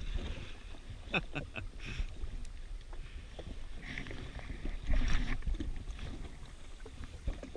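Wind on the microphone and choppy water lapping against a drifting jet ski's hull, with a few short sharp sounds about a second in and a brief louder sound about five seconds in.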